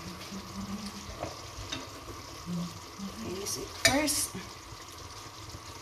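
Food sizzling steadily in a pan on a gas stove, with a spoon stirring and clinking sharply against the pan about four seconds in.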